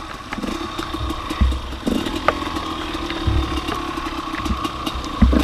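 Two-stroke engine of a 2003 Gas Gas EC 250 enduro bike running steadily, with a few dull thumps about every two seconds and scattered clicks.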